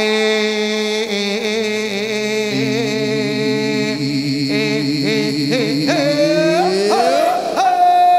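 Singing over steady musical accompaniment: long held, wavering notes, the voice sliding up to a high held note near the end.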